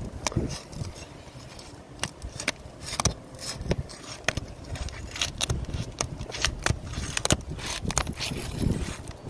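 Asphalt roof shingle being pried and broken loose from its nails and seal, with an irregular run of sharp cracks and scraping.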